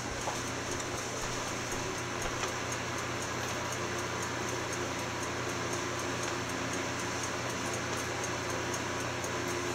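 Steady room tone: an even low hum with a soft hiss and no distinct events.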